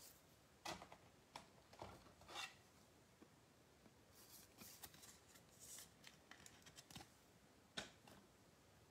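Faint rustling and light clicks of trading cards being handled and a plastic-cased card set into a clear acrylic display stand, a few scattered ticks with a sharper click near the end.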